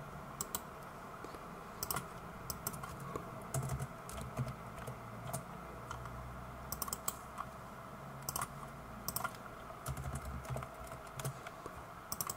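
Computer keyboard typing: keys tapped in short, irregular bursts with gaps between them.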